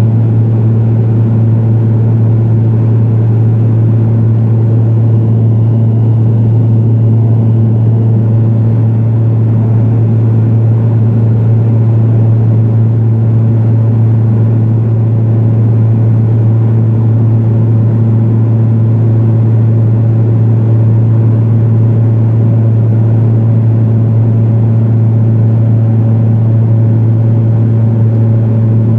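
Cabin noise inside a Pilatus PC-12 in flight: its single Pratt & Whitney PT6A turboprop and propeller make a steady drone with a strong low hum, over a constant rush of air.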